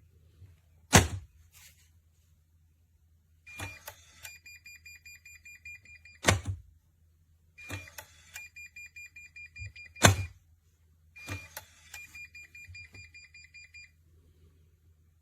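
Small electronic pistol safe beeping rapidly in high electronic pulses, three times over, each run of beeps cut off by a loud clunk of metal on metal.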